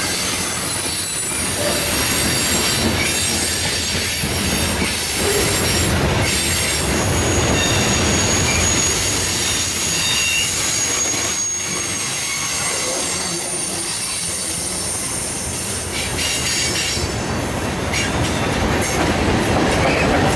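Freight cars, covered hoppers and then steel-coil cars, rolling past on a curve. The wheels clack over the rail joints, and high, thin flange squeal comes and goes over the steady rolling noise.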